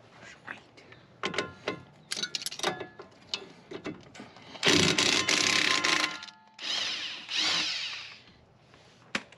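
A power tool runs in two bursts of about a second and a half each, the second trailing off, amid light metallic clinks and taps of tools and parts while the front suspension is being unbolted.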